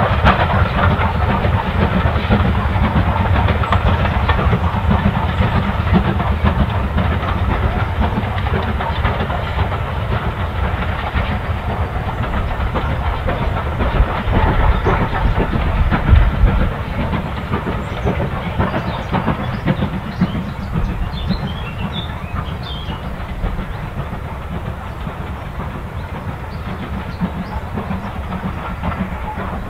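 Steam locomotive hauling a passenger train: working exhaust and the rumble of the coaches on the rails, continuous and slowly fading as the train draws away.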